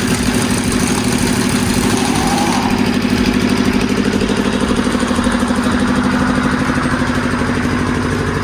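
An engine idling steadily with a fast, even chug.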